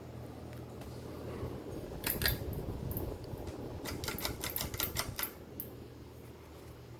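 Sears TOC 52-inch ceiling fan motor humming steadily, with a rapid run of sharp clicks, a few about two seconds in and about a dozen between four and five seconds in.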